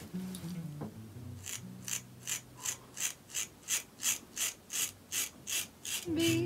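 Ever Ready Streamline single-edge safety razor scraping lathered stubble under the nose in short, quick strokes. The strokes begin about a second and a half in and come evenly, about three a second, each a crisp rasp of the blade cutting whiskers.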